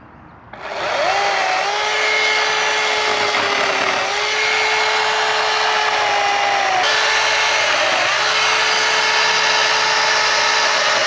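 Small electric power tool used to mark cutting lengths on a log, starting up about half a second in and running steadily with a whine. Its pitch dips briefly a couple of times as it bites into the wood.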